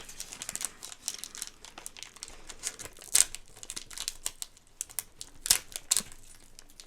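Snack packet crinkling and crackling as it is handled and pulled at to get a gummy out, with a few sharper crackles about three seconds in and again near the end.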